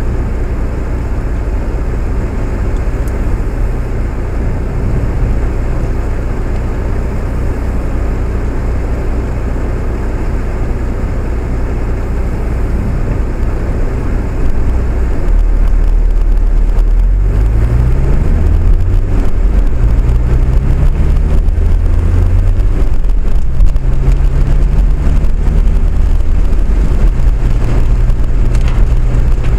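A vehicle on the move, heard from on board: a steady low rumble that grows louder about halfway through, then a low pitch that rises several times in steps as it speeds up.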